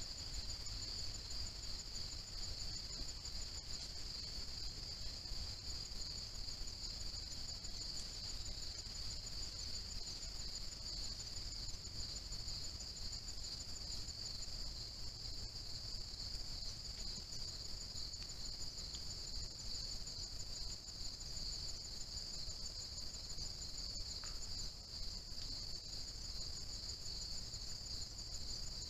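Steady chorus of insects, a continuous high-pitched trill that never lets up, over a faint low rumble.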